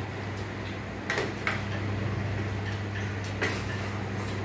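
Chopsticks and spoons clicking against small metal bowls while eating: a few sharp clinks about a second in and again past three seconds, over a steady low hum.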